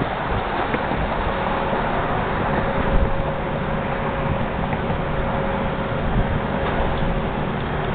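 Steady low rumble of engines, with wind buffeting the microphone. A faint steady whine comes in about a second in, and there is a low thump about three seconds in.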